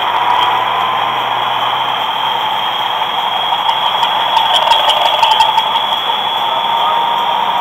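Steady road and wind noise with engine drone from a vehicle travelling at road speed, with a few light ticks midway.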